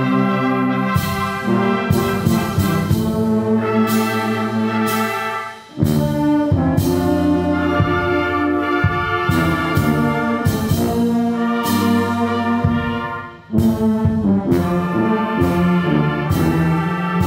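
Church brass band with flutes playing a slow hymn: trumpets, tubas and other brass holding full sustained chords. The music breaks off briefly twice between phrases, about five and a half and thirteen seconds in.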